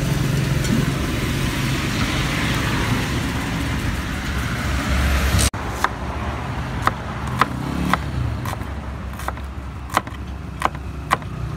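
Kitchen knife slicing shallots on a wooden chopping board: short sharp chops about once a second in the second half. Steady road traffic runs underneath, louder in the first half.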